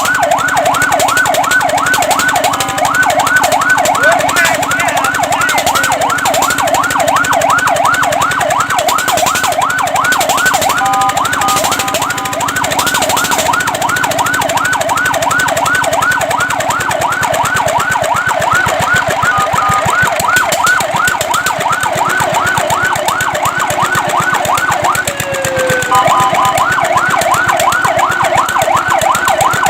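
Fire truck siren in a fast yelp, its pitch sweeping up and down several times a second. It is broken a few times by short, steady held tones.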